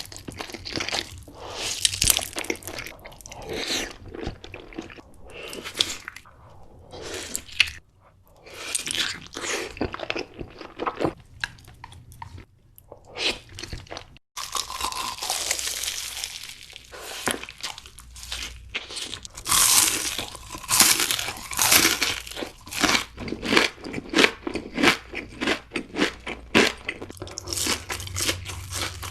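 Close-miked eating of crunchy food: repeated crisp crunches of biting and chewing, irregular and dense throughout, broken by a brief gap about halfway.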